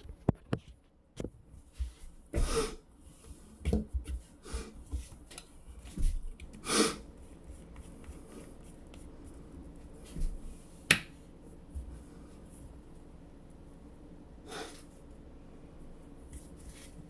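A man's short, sharp nasal bursts, several in the first seven seconds, with small clicks between. A single very sharp click comes near eleven seconds, and one more fainter nasal burst near fifteen seconds.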